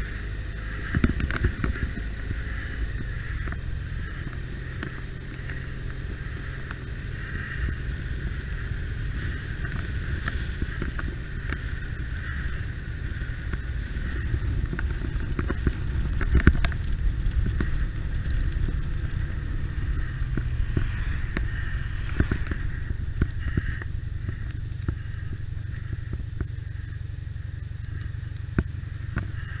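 Motorcycle running under way: a steady low engine rumble with road noise, broken by scattered clicks and knocks.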